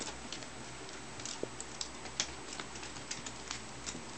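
A ferret rummaging and scrabbling: irregular light clicks and scratches, a few a second.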